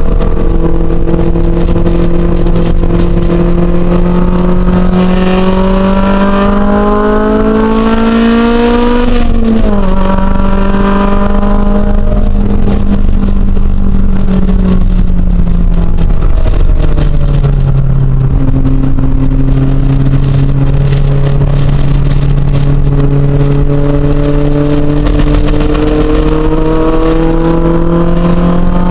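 Honda S2000's four-cylinder engine heard from inside the cabin, pulling up through the revs for about nine seconds, then dropping sharply and easing off, falling again about seventeen seconds in before climbing slowly once more. A hiss of rain and tyre spray comes and goes over it.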